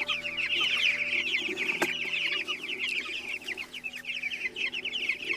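A flock of young meat chicks peeping continuously, many short high falling chirps overlapping. A single sharp click about two seconds in.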